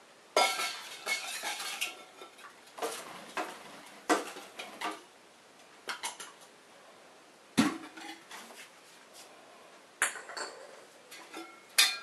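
Male house sparrow pecking and fluttering at its own reflection in the glass face of a wall clock, attacking it as a rival: clusters of sharp clinking taps, several bursts a second or two apart.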